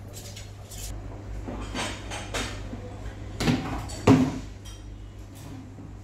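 Restaurant dining-room clatter: dishes and cutlery clinking and knocking, with two louder knocks a little past the middle, over a steady low hum.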